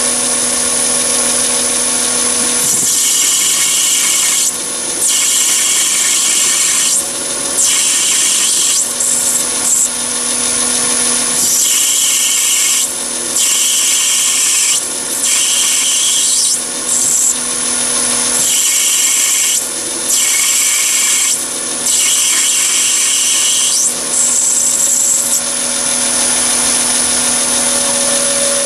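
Chinese mini lathe running at about 660 rpm with a steady motor hum while a turning tool cuts down a scrap brass bar. The rasping cutting hiss starts about three seconds in and runs until near the end, breaking off briefly every second or two.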